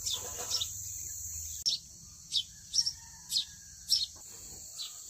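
A bird calling with short, quick descending chirps, about half a dozen in a row, over a steady high-pitched drone of crickets or other insects.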